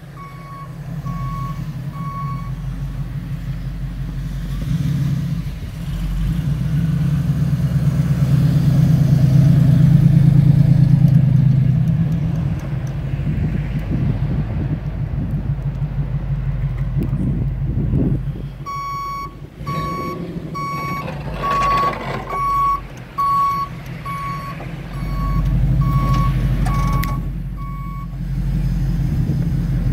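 1975 Dodge W300 truck's 440 V8 engine running as it manoeuvres, swelling louder for a few seconds in the middle. A backup alarm beeps steadily for the first couple of seconds and again through most of the second half.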